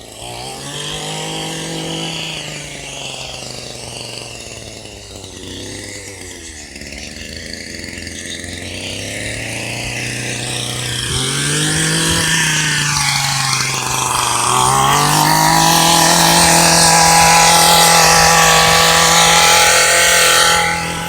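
Gas weed eater fitted with a chainsaw attachment, its engine revved up and down several times, then held high and getting louder for several seconds before dropping off just before the end.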